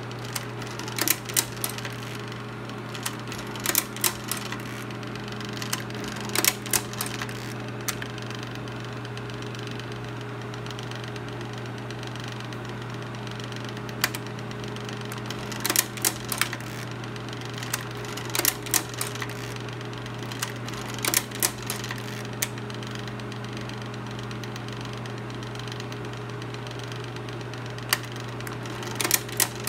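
Argus 500 Electromatic slide projector running, with a steady motor hum. Clusters of clicks and clacks come every few seconds as its slide-changing mechanism cycles, with a pause of several seconds in the middle.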